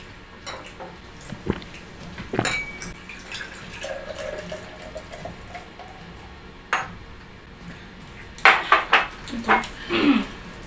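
Tableware clinking: plates, glasses and glass bottles knocked and set down on the table in scattered sharp clinks, with a cluster of loud ones near the end. There is some liquid pouring from a bottle into a glass.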